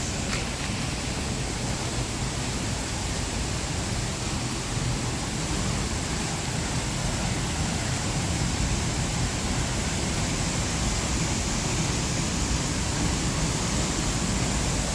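Steady rush of a waterfall, a dense even roar of falling water.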